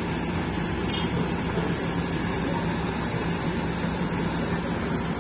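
Excavator's diesel engine running steadily at constant speed, a low even hum with no change in pitch.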